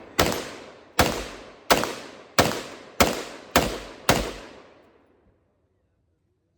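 Firearm shooting a steady string of seven rapid single shots, about one every two-thirds of a second, each crack followed by a ringing echo that trails off.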